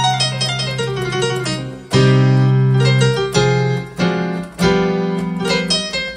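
Korg Pa60 arranger keyboard's piano voice being played: a quick falling run of notes, then four chords struck about a second apart over held low notes. It sounds clean, without the crackle of the mainboard fault that has just been repaired.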